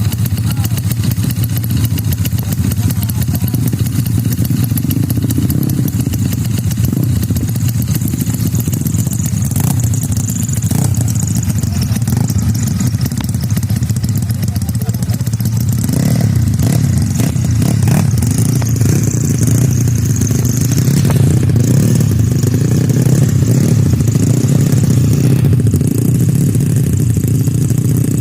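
Tuned Yamaha Mio scooter engine running steadily, a loud, even drone.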